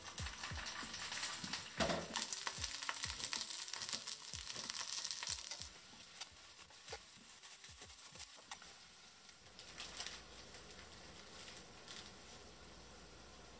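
Sliced onion sizzling as it stir-fries in a stainless steel pan, with light clicks as chopsticks stir it against the pan. The sizzle drops away about halfway through, leaving a few quieter clicks.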